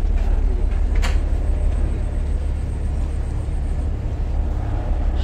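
Houseboat's diesel engine running, a steady low rumble, with a single sharp click about a second in.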